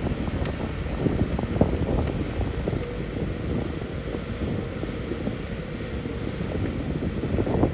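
Heavy diesel construction machinery running with a low, steady rumble, mixed with wind buffeting the microphone.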